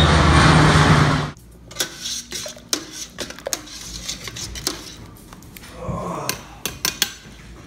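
A four-engine turboprop plane passing low overhead, a loud steady drone that cuts off about a second in. Then a metal utensil clinking and knocking against a stainless steel stockpot of soup, in scattered light strikes.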